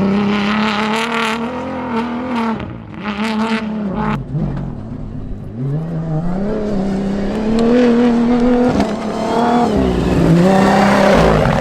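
Toyota Hilux DKR T1+ rally-raid truck's engine running hard, its revs holding high, then dropping off a little after four seconds in and climbing again, with another dip and rise near the end.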